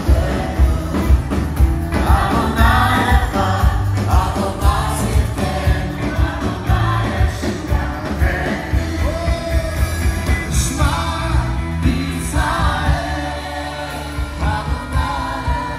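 Live Christian worship music, loud: a band with singing voices over drums and bass, keeping a steady beat.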